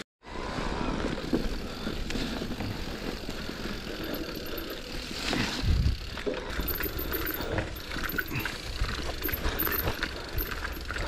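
Electric mountain bike riding over a muddy, leaf-covered woodland trail: steady rushing tyre and trail noise with frequent small rattles and knocks from the bike, and a louder bump about five and a half seconds in. The sound drops out briefly at the very start.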